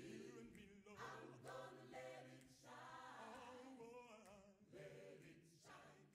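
A choir singing unaccompanied, faintly, in sung phrases over a held low note; it trails off near the end.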